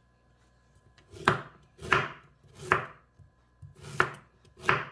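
Chef's knife cutting fresh ginger root into small pieces on a wooden cutting board: five separate chops at roughly one every 0.7 seconds, starting about a second in.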